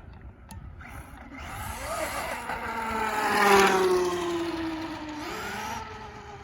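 Traxxas Maxx RC truck's brushless motor and drivetrain whining under throttle: the whine climbs to its loudest about three and a half seconds in, then drops in pitch and fades as the truck eases off.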